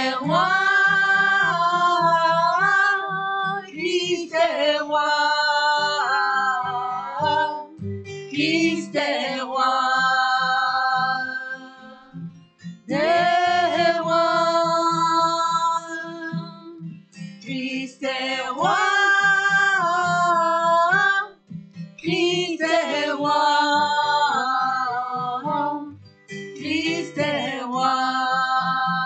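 A woman singing a French worship song over a strummed acoustic guitar, in long held phrases with short breaks between them.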